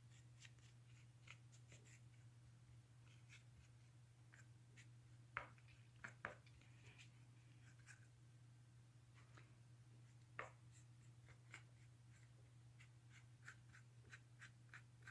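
Near silence: faint scratching and tapping of a paintbrush working paint onto a textured canvas, with a few slightly louder taps around the middle, over a low steady hum.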